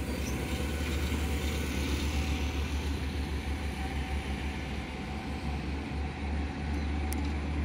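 Steady low rumble of a diesel-hauled passenger train pulling away and receding into the distance.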